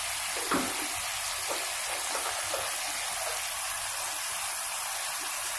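Snake gourd and potato pieces frying in oil in a steel kadai, a steady hiss of sizzling, with a faint tap about half a second in.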